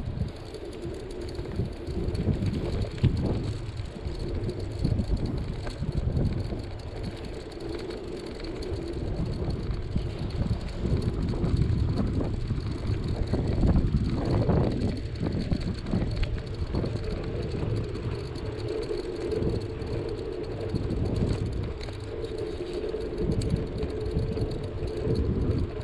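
Bicycle rolling along a paved road, with wind buffeting the microphone and a low, uneven road rumble.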